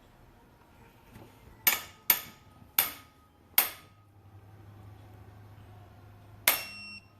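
Click-type torque wrench clicking sharply four times as bolts reach torque, then a single ringing metal clank from the tool about three seconds later.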